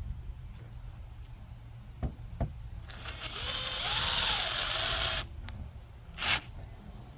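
Cordless drill/driver running for about two seconds, its motor pitch rising and falling with the trigger, driving screws into the fiberglass deck around a plastic deck plate. A few light clicks come before it and a sharp knock after it.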